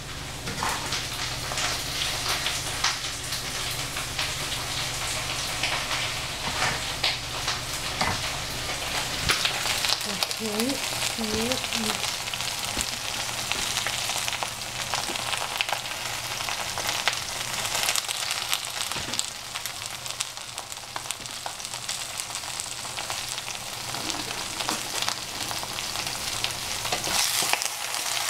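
Vegetables sizzling as they fry in oil in a pan, with scattered clicks and scrapes of a utensil stirring them.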